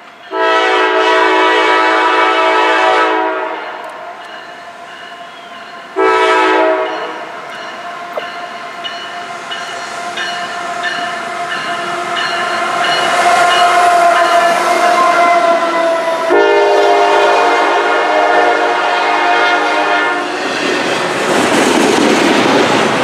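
A CSX diesel freight locomotive's multi-chime air horn blows a long blast, a short one about six seconds in, and another long one near the middle, a long-short-long pattern typical of a grade-crossing signal. Between the blasts the locomotive's engine and wheels grow louder as it comes by. Near the end the loaded double-stack container cars roll past with a clickety-clack of the wheels.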